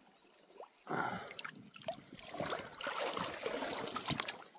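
Water splashing and sloshing in a tub as a gloved hand scrubs clay off a piece of bedrock to free the gold in it, with a few sharp clicks. It starts about a second in.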